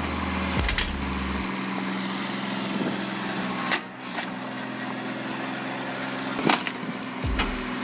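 Engine-driven wood splitter running steadily, with three sharp knocks about three seconds apart.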